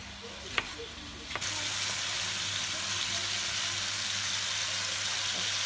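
Two sharp knocks of a chef's knife slicing red bell pepper on a cutting board, then, about a second and a half in, steady sizzling of pork chunks frying in oil in a pan.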